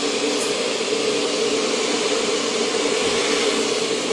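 Kitchen extractor fan running steadily: an even rush of air over a steady hum.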